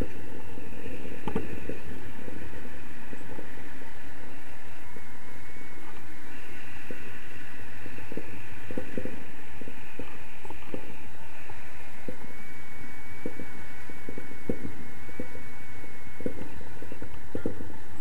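Wind rushing over the camera microphone in flight on a tandem paraglider, a steady rumbling noise with irregular gusty buffets and a thin steady high tone behind it.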